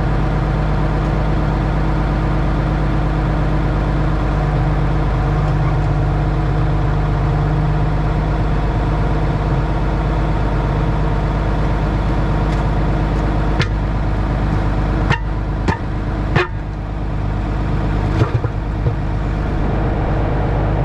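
Tractor diesel engine running at a steady idle. Several sharp metallic clanks come over it in the last third.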